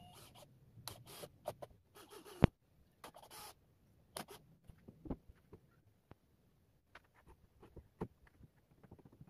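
Scattered knocks, clicks and short scrapes from plywood panels and clamps being handled, with one sharp knock about two and a half seconds in. Flip-flop footsteps slap on the concrete near the end.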